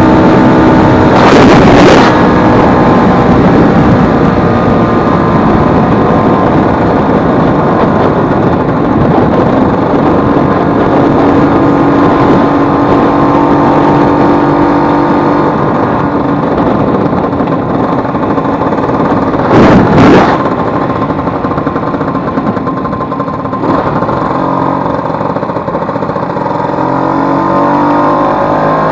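Vespa 150's single-cylinder two-stroke engine running under way on the road, its pitch stepping up and down as the revs change near the end, with two brief loud rushes of noise about a second and a half in and about twenty seconds in. The engine, its broken elastic pinion replaced, runs smoothly.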